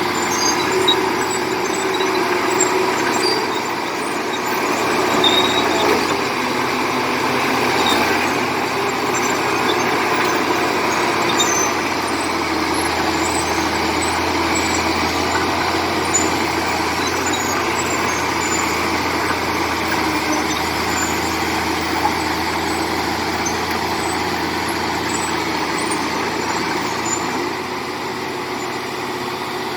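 Komatsu D70LE crawler bulldozer's diesel engine running steadily at working load, with scattered short high-pitched squeaks over it.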